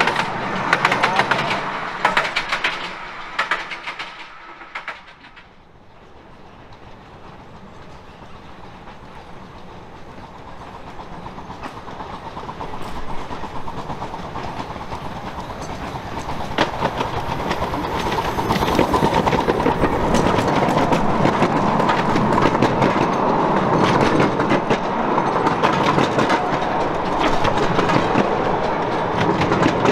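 10¼-inch-gauge miniature railway carriages rolling past close by, their wheels clicking over the rail joints; the sound dies away about five seconds in. Another train then approaches, growing steadily louder until its carriages roll past with a steady clickety-clack.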